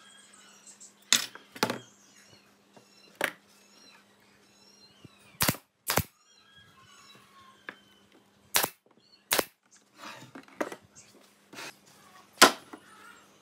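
Brad nailer driving nails into pine frame joints: about ten sharp, irregularly spaced shots, the loudest near the end.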